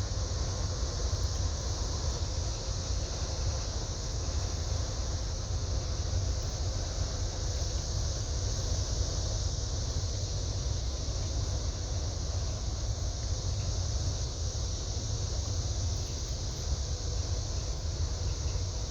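Steady low rumble of a towboat's diesel engines as it moves into a lock, with a faint constant hum in it. Over it runs a steady high buzz of insects.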